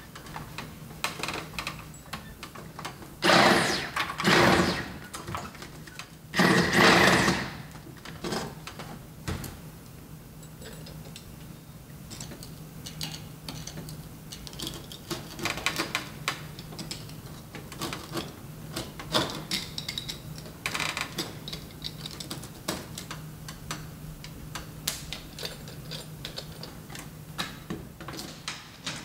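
Handling noise on an asphalt-shingled roof: scattered clicks, taps and scraping as a hole is marked out around a short piece of mast. Two louder noisy bursts come a few seconds in, the first about a second and a half long and the second about a second. A low steady hum runs underneath.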